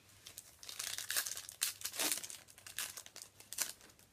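Foil wrapper of a Yu-Gi-Oh booster pack being crinkled and torn open by hand, in a string of irregular crackling bursts.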